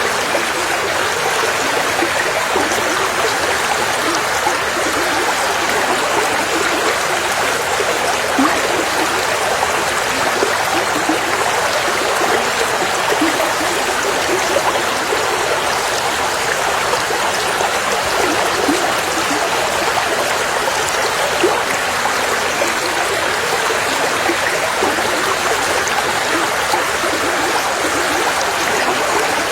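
River water flowing steadily over stones, a continuous rushing with small splashes and gurgles.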